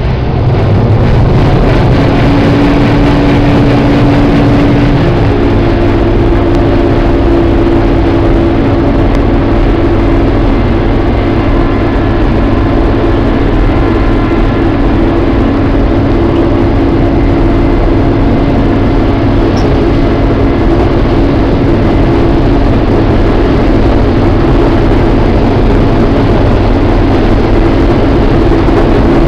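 New Holland TR70 combine harvester running steadily under load, a continuous mechanical drone with a couple of held tones that shift slightly about five seconds in.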